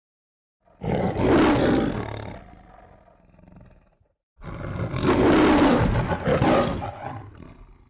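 A lion roaring twice, in the style of the MGM film-logo roar: a first roar about a second in that fades away, then a longer second roar.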